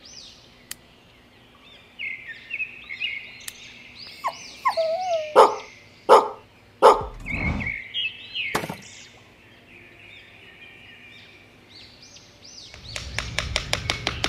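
Small birds chirping repeatedly, with four sharp knocks between about five and nine seconds in; music starts again near the end.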